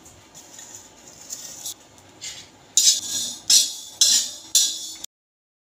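Coriander and cumin seeds being dry-roasted on an iron tawa, a spatula scraping and stirring them across the pan: four quick scrapes about half a second apart after a quieter stretch. The sound cuts off suddenly near the end.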